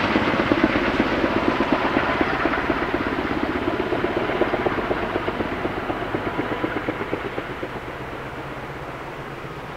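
Kaman K-MAX helicopter's intermeshing twin rotors beating rapidly, the sound fading steadily as it flies away.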